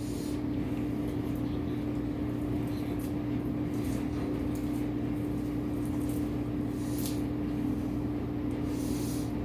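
A steady low mechanical hum that holds one pitch throughout, with a couple of faint brief scrapes around it.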